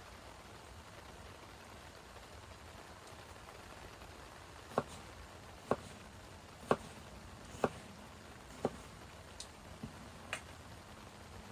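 Steady hiss of rain, with a run of five sharp ticks about a second apart midway through and a few fainter ticks after them.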